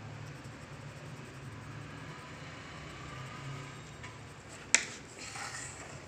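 Faint scratching of a pencil on paper over a low steady hum, with one sharp click about three-quarters of the way through.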